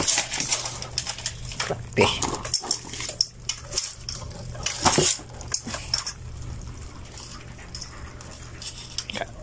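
Wet knocks and clatter as a fish and the mesh of a hand scoop net are handled in a plastic basin of fish and crabs, busiest in the first six seconds. Two short voice-like calls stand out, about two and five seconds in.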